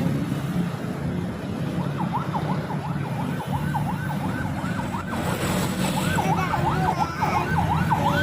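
Ambulance siren in a fast repeating up-and-down yelp, starting about a second in and growing busier from about six seconds, over the steady low rumble of vehicle engines. A brief hiss comes about five seconds in.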